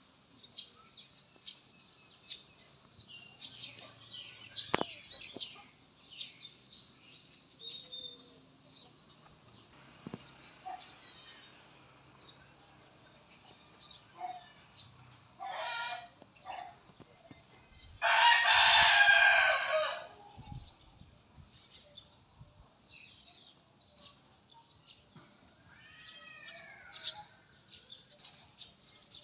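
A rooster crows once, loud and about two seconds long, some eighteen seconds in, with shorter calls a couple of seconds before it. Small birds chirp faintly throughout.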